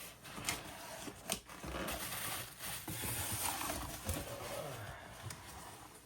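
Cardboard box and packaging being handled and shifted: a few light knocks, then rustling and scraping that fades out near the end.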